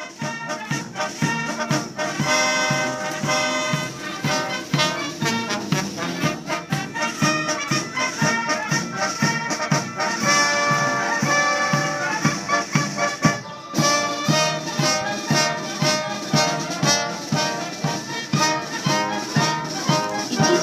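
Brass band music with trumpets and trombones over a steady beat, with a brief break about two-thirds of the way through.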